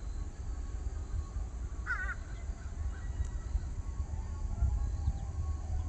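A bird calls once, briefly, about two seconds in, over a steady low rumble.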